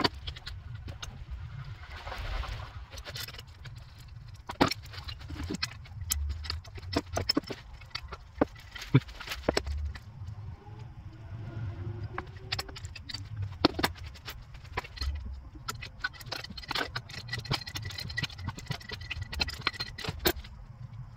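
Scattered clicks, clunks and rattles of hands and a wrench working at an alternator's wiring plugs and mounting hardware in a car's engine bay, over a low, uneven rumble.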